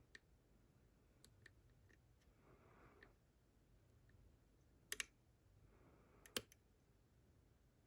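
Faint clicks of a lock pick working the pins of a pin tumbler lock as each pin is probed and set, with a sharper double click about five seconds in and another single click a little over six seconds in.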